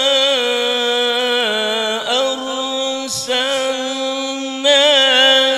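A man reciting the Qur'an in the melodic tilawah style into a microphone, holding long ornamented notes. There is a short break about three seconds in, and the voice swells louder near the end.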